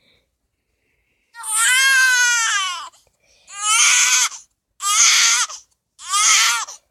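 A baby crying: four loud wailing cries, the first the longest, each one dropping in pitch at its end.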